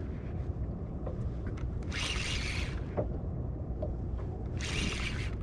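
Spinning reel giving line in two short raspy bursts as a hooked sea bream pulls against it, over a steady low rumble.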